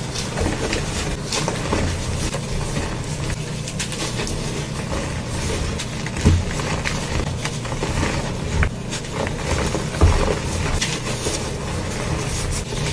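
Concrete being mixed by machine: a steady low mechanical rumble with irregular knocks and clatters, two sharper knocks about six and ten seconds in.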